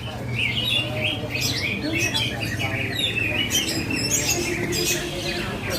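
Several caged cucak ijo (green leafbirds) singing at once in competition, a dense overlap of fast chirps, trills and whistled phrases, over a low background hum.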